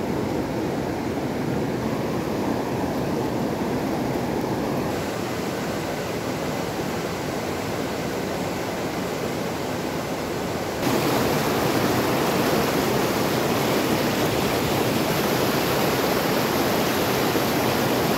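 River water rushing through shallow whitewater rapids, a steady rush of water. Its tone changes abruptly about five seconds in, and again about eleven seconds in, when it turns louder and brighter.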